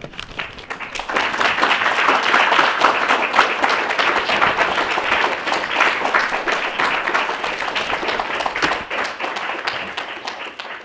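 Audience applauding, many hands clapping together. The applause swells over the first couple of seconds, holds, then slowly tapers off near the end.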